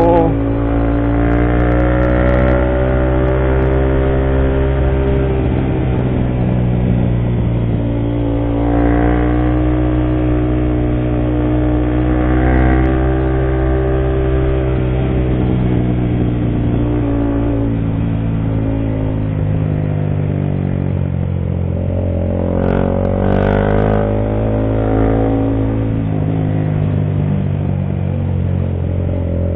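Motorcycle engine running under load on a steep uphill climb, its pitch rising and falling repeatedly as the throttle is opened and eased and gears change.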